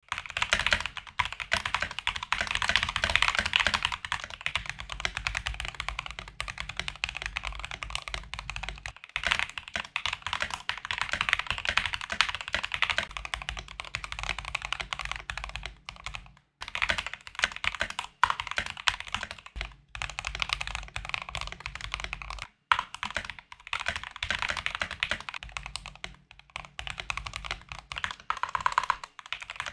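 Fast, continuous typing on a Drop CTRL mechanical keyboard with lubed Everglide Aqua King linear switches, Durock stabilizers and almost no foam, many keystrokes a second. The sound switches a few times, with short breaks, between the board with and without a tape mod, which the owner finds takes away the high-pitched clack when keys bottom out.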